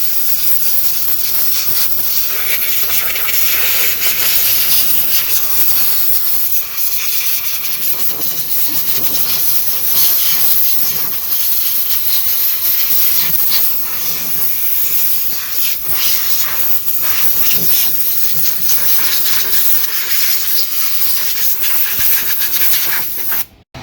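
Compressed air from an air hose blowing excess WD-40 off an RC car: a loud, steady hiss that flutters as the nozzle moves over the chassis, cutting off suddenly just before the end.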